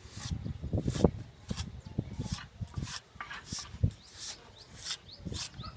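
Plasterer's trowel scraping and rubbing wet cement render onto a surface, in repeated strokes about twice a second.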